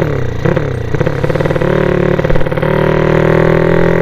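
Loud motorcycle engine of a homemade motorized bicycle under way. The revs drop and climb back in the first second, then hold steady, a little louder from about two-thirds of the way through.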